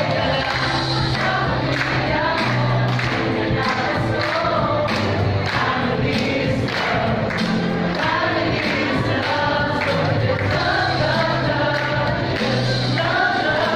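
Christmas medley music: a group of voices singing together in chorus over a backing track with held bass notes and a steady beat.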